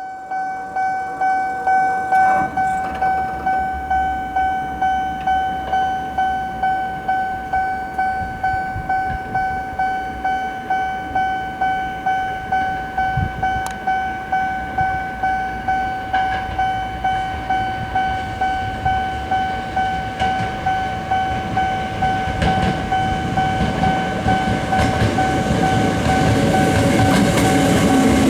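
Japanese level-crossing warning bell ringing its repeated "kan-kan" at a steady pace of about two strikes a second. A train's low rumble builds up over the last several seconds as it comes through the crossing.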